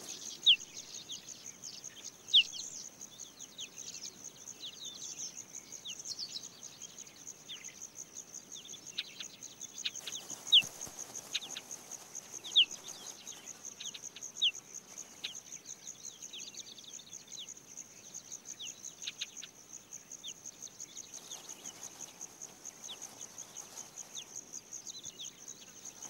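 Steady, fast-pulsing high trill of steppe insects, crickets or grasshoppers, with short, sharp, falling chirps scattered over it, a few of them louder.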